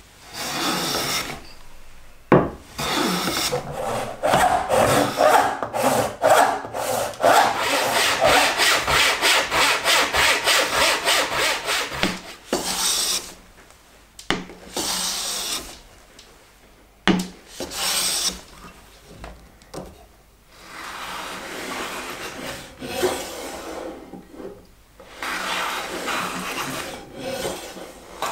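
Hand planes shaving wood, stroke after stroke: a long run of quick, short passes, then slower, longer strokes with pauses between them.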